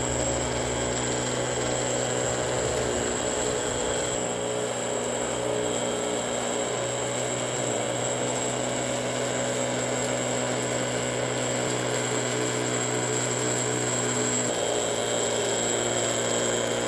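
Small electric motor of a homemade vacuum cleaner model running with a steady whirring hum and a thin high whine; the hum changes about fourteen seconds in.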